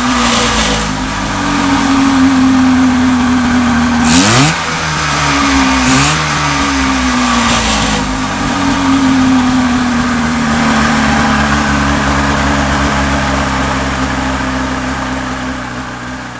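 Rotax 503 twin-cylinder two-stroke snowmobile engine with dual carburettors running on a test stand during a run-up test. It is blipped twice, at about 4 and 6 seconds in, the revs jumping sharply and sinking slowly back each time. It then runs steadily, its pitch slowly drifting down, and the sound fades near the end.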